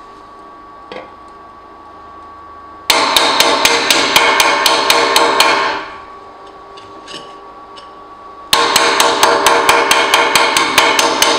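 Quick, even blows of a metal tool on a thin aluminium plate, knocking the slag off a fresh stick-electrode weld bead. There are two runs of about three seconds each, at about six blows a second.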